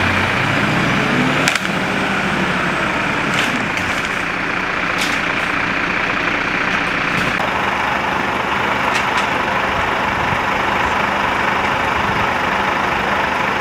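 Fire engine's diesel engine running steadily, with a few short clicks and knocks over it.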